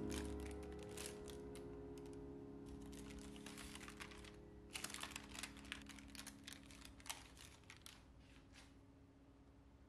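Parchment baking paper crinkling and crackling in quick clusters of small clicks as it is handled, while a held piano chord fades out underneath.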